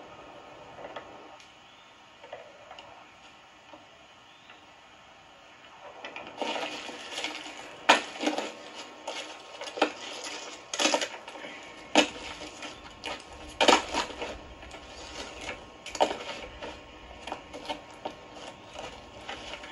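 Dry bark and rotten wood crunching and cracking under sneakers, in irregular sharp snaps that start about six seconds in; before that only a faint hiss.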